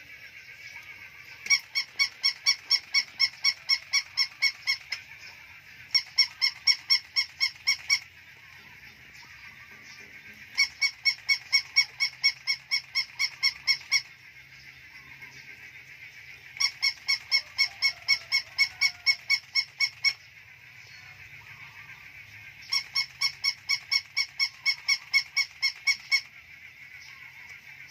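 Battery-operated plush toy puppy barking: rapid high, squeaky electronic yaps, about four a second, in bursts of about three seconds that repeat five times at regular gaps.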